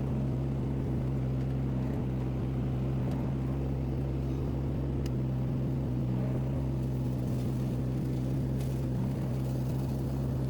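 Mini skid steer loader's engine running at a steady, unchanging speed, a constant low hum.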